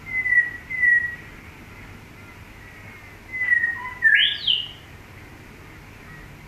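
A bird singing clear whistled notes: two short, slightly falling whistles, then about three seconds in a longer phrase of a falling whistle and two quick rising sweeps, the last going higher.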